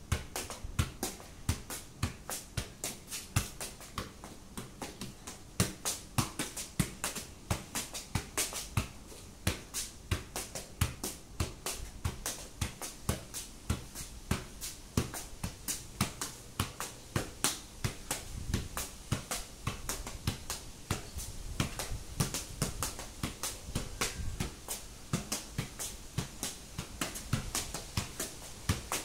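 A football being juggled, a steady run of soft thuds as the ball is struck up again and again off the thigh and foot, about two to three touches a second.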